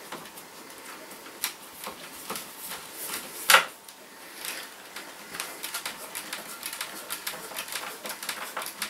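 Small clicks and scrapes of a hand screwdriver turning a tiny self-tapping screw into a lamp fitting on a plywood base, with one sharper knock about three and a half seconds in and a quick run of small ticks in the second half.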